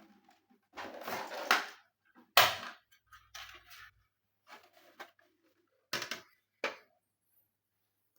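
Handling noises from an all-in-one desktop computer being taken apart: scraping and clicking of its casing and parts. A sharp knock comes about two and a half seconds in, followed by a few short clicks.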